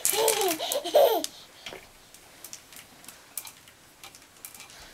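A toddler laughing in a quick run of short bursts for the first second or so. This is followed by faint scattered clicks and rustling as hanging clothes and hangers are handled.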